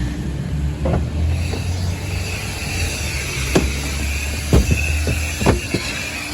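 Self-service car vacuum running with a steady low hum and a high whine, while several sharp knocks and clatters come in the second half.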